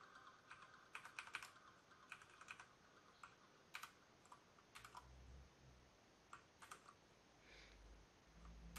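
Faint, scattered single key presses on an MSI Vigor GK80 mechanical keyboard, a few seconds apart, as keys are pressed to switch its lighting modes.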